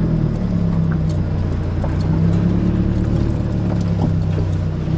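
Car engine running steadily at low revs.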